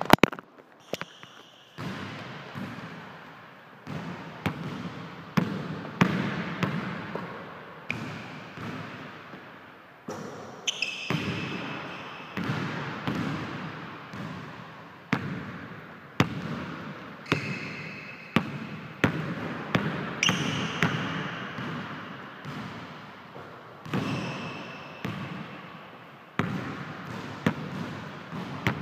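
A basketball bouncing and being dribbled on a hardwood gym floor, every second or two, each bounce echoing in the hall. Short high squeaks of sneakers on the floor come several times. There is a sharp knock at the very start.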